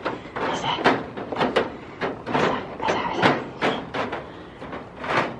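Goats jostling close around the microphone: a quick, irregular run of knocks, scuffs and rustles from their heads, horns and bodies bumping and brushing past.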